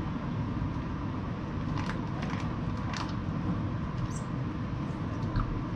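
Steady low background rumble, with a few faint short crackles.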